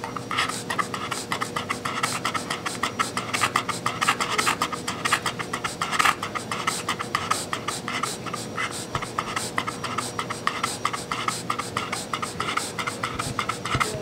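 English bulldog panting rapidly and evenly, quick short breaths through its open mouth.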